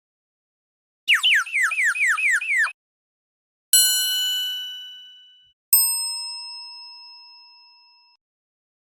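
Cartoon sound effects in sequence: a fast run of about eight falling whistle-like chirps lasting about a second and a half, then two separate bell-like dings of different pitch, each struck once and ringing out as it fades.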